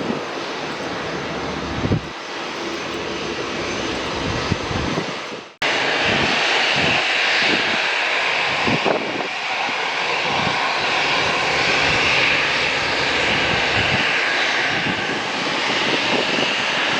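Airbus A320-214's CFM56 jet engines running at takeoff power, a steady roar. About five and a half seconds in the sound cuts out for an instant, then comes back louder, with more hiss.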